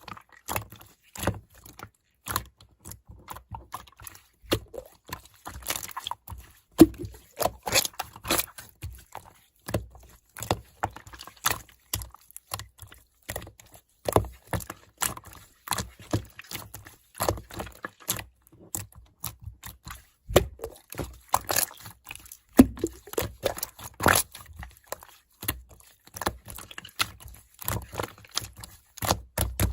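Slime being squeezed and poked by hand: an irregular run of short sticky clicks and pops.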